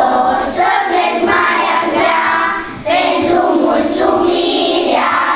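A group of young schoolchildren singing a song together, with a short break between phrases just under three seconds in.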